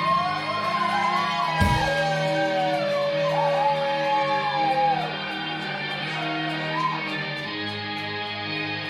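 Live stoner rock: an electric guitar plays slow, sustained lead notes with pitch bends over a steady, held low drone. There is a single hit about a second and a half in, and no drum beat.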